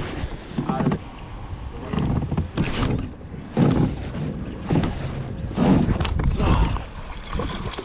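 Handling noise on the camera's microphone: a jacket sleeve and fingers brushing and rubbing against it in bursts about once a second, over a low rumble, with a few sharp clicks.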